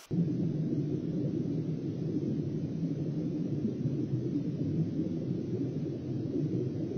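Steady low rumbling noise from an underwater fishing camera's microphone beneath the ice, with no distinct events. The noise starts suddenly at the very beginning.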